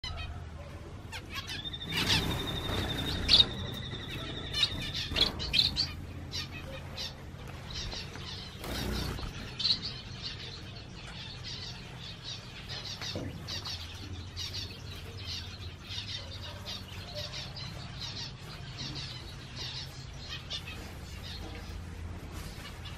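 Small aviary finches chirping, with many short high calls throughout. A steady high tone is held for about two seconds early on, and there are a couple of louder rustling bursts.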